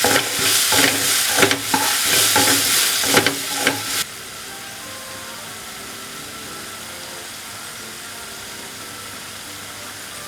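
Sliced onions frying in hot coconut oil in a pan, sizzling, with a spatula stirring and scraping against the pan in repeated sharp strikes. About four seconds in the sound drops abruptly to a much quieter steady hiss.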